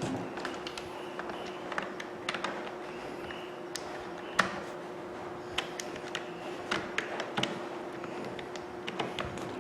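Scattered light clicks and taps of small parts and tools being handled over a steady hum. The sharpest tap comes about four and a half seconds in.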